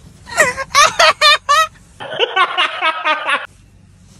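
People laughing: quick rhythmic bursts of ha-ha, then about two seconds in a longer, denser stretch of laughter that sounds thinner.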